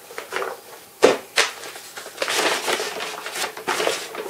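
Package wrapping rustling and crinkling as it is pulled open by hand, with a single thump about a second in.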